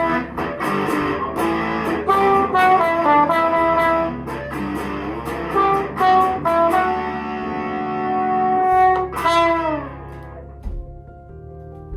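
Guitar music: a lead line of quick plucked notes and held notes that bend in pitch, thinning out to a few sparse notes near the end.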